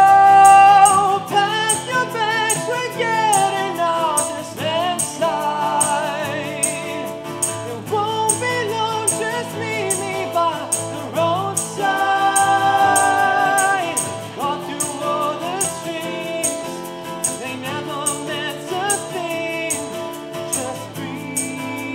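An acoustic band performing: two acoustic guitars strummed, a tambourine and shaker keeping a steady beat, and a man singing the melody.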